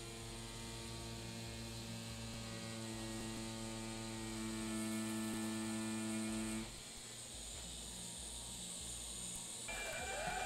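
Pen-style rotary tattoo machine running at about 7 volts, a steady buzzing hum as it lines practice skin with a 7-round liner needle. It stops suddenly about two-thirds of the way in.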